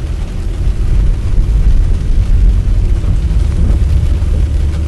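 Steady low rumble of a car driving on a wet highway, heard from inside the cabin: tyre and road noise.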